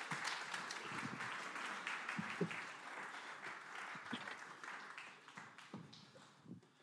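Congregation applauding, many hands clapping together; the clapping thins out and fades away over the last couple of seconds.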